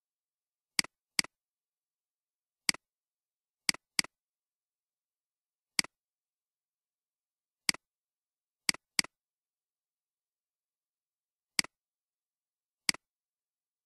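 Computer mouse clicks, single and in quick pairs, coming irregularly about one to two seconds apart.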